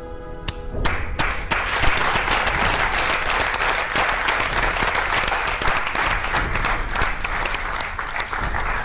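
Studio audience applauding. It starts about a second in, as the background music cuts off, and keeps up steadily.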